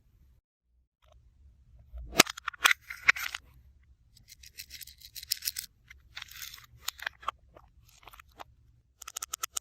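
Slime and craft materials being handled: sharp sticky clicks and crackly rustling in irregular bursts, ending in a quick run of clicks.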